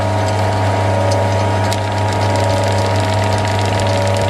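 Small metal lathe running, its motor and drive giving a steady low hum with a higher whine as the chuck spins. Light, irregular ticks come in from about a second in.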